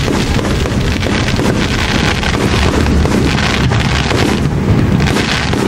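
Aerial fireworks going off, a dense, unbroken rumble of overlapping bursts and crackle.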